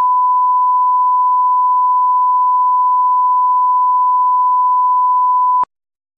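Electronic test tone: one steady pure pitch held unchanged, cutting off abruptly with a click about five and a half seconds in.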